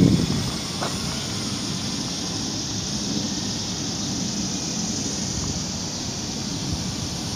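Electric RC aerobatic plane in flight: its brushless outrunner motor and 13x6.5 propeller give a steady whirring drone, holding at one level throughout.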